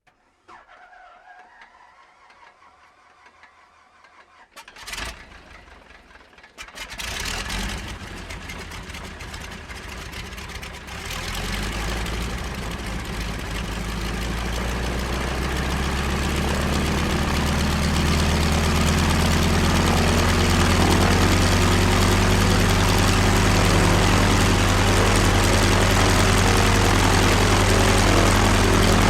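Propeller plane's piston engine being started: a few faint mechanical sounds, a sharp knock about five seconds in, then the engine catches about seven seconds in, picks up again at about eleven seconds and builds into a steady idle.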